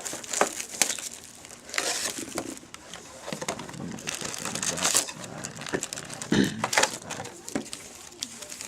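Irregular crinkling and rustling of packaging as a trading-card box and its sealed card packs are handled and opened, with sharp crackles now and then.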